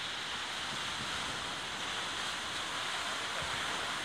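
Steady wash of ocean surf on a beach.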